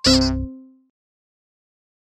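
The closing chord of a sung children's cartoon intro jingle, with a low bass note that dies away within about half a second. The rest is silence.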